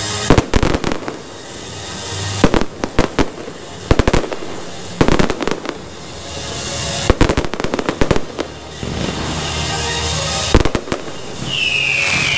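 Aerial fireworks shells bursting in clusters of sharp bangs every second or two, with a steady crackling hiss between the clusters. Near the end, several whistles fall in pitch together.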